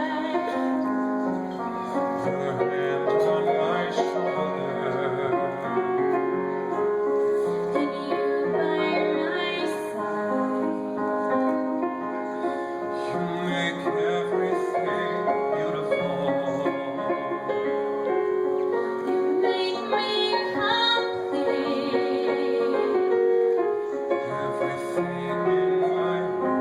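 A woman singing a slow ballad with vibrato over piano accompaniment.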